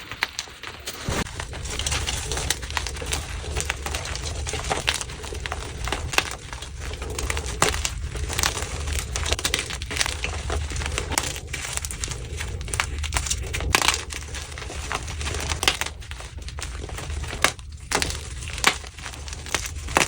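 Blocks of gym chalk being crushed and crumbled, a continuous irregular crunching and crackling with a few louder snaps.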